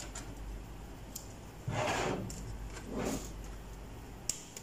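Plastic front bezel of a Dell OptiPlex 3010 tower case being pulled off its metal chassis: two scraping rubs, about two and three seconds in, with a few light clicks from the bezel's retaining tabs.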